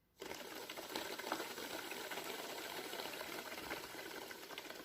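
Homemade bottle bubbler: air drawn through vodka, bubbling steadily as someone inhales through its tube. It starts about a quarter second in.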